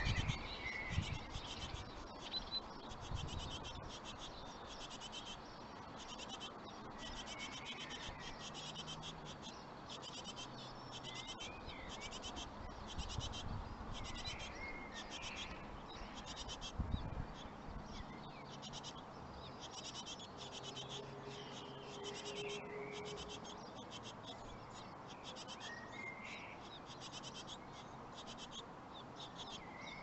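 Great tit nestlings begging: faint, rapid, high-pitched buzzy chirps repeated about once a second, with a few short lower bird chirps now and then.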